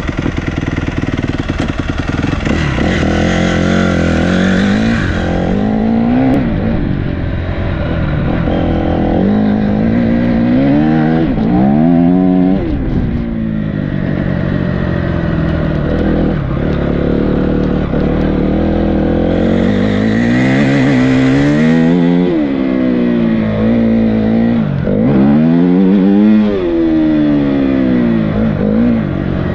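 Enduro motorcycle engine being ridden hard, its pitch climbing under throttle and dropping back again and again as the rider accelerates and eases off.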